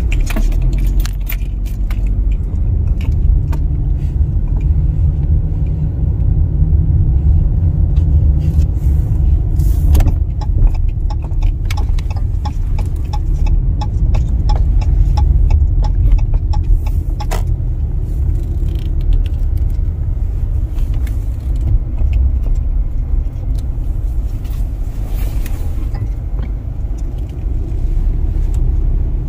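Car on the move: a steady low road-and-engine rumble with scattered small clicks and rattles.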